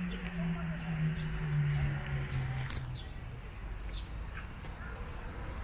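Steady high-pitched insect chirring, with a low hum sliding down in pitch during the first three seconds and a few faint ticks.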